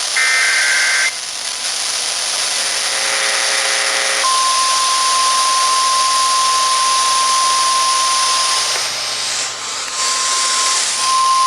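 NOAA Weather Radio alert signals heard over radio static: a one-second, two-pitch SAME header data burst, then about four seconds in a steady 1050 Hz warning alarm tone that runs on, weakening briefly about nine seconds in. The tone heralds a tornado warning.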